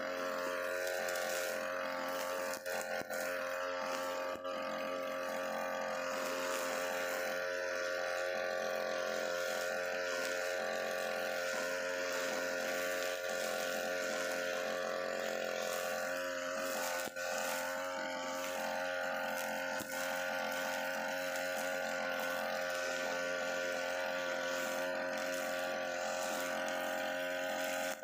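UM328 brushcutter's small two-stroke engine running steadily at high speed, its 2.4 mm nylon line cutting grass down to the soil, with a few momentary dips in level.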